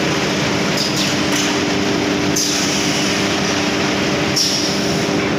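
Plywood double sizer machine running: a loud, steady mechanical din of saw and conveyor motors with a constant hum, the high hiss on top brightening and fading a few times.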